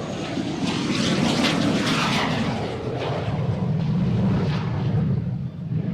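Fixed-wing aircraft flying past at low level on arrival, its engine noise swelling and then fading away near the end.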